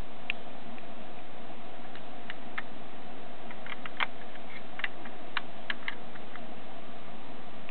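Steady background hiss with a faint hum, and a scattered run of small light clicks, most of them bunched together about halfway through.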